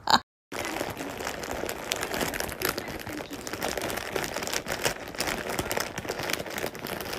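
Foil potato-chip bag crinkling and crackling continuously as a cat lies on it and shifts about. It begins after a brief sharp sound and a half-second dropout at the very start.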